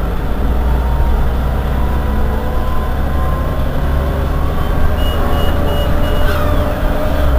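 Irisbus Iveco Citelis 18 city bus's diesel engine running with a steady deep rumble, and a whine that rises slowly in pitch over the second half. About five seconds in, four short high beeps sound in quick succession.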